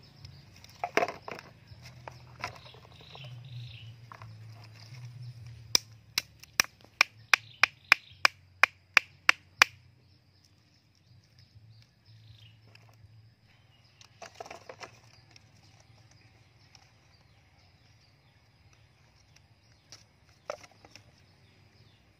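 A wooden stick pounding on a log: about a dozen sharp knocks at roughly three a second, a few seconds in, with rustling and handling noises before and after.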